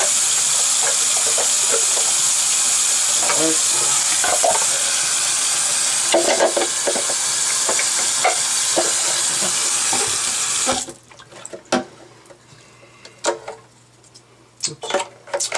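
Bathroom faucet running steadily into the sink, with scattered knocks of the plastic parts of an AquaClear hang-on-back aquarium filter being handled. The tap is shut off suddenly about eleven seconds in, leaving only the light clicks and knocks of the plastic parts.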